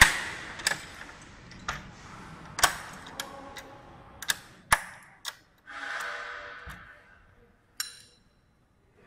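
Hand-operated locking latches on stacked LED display cabinets clicking and knocking as they are locked, a string of sharp separate clicks, the loudest at the very start. About six seconds in there is a short scraping sound.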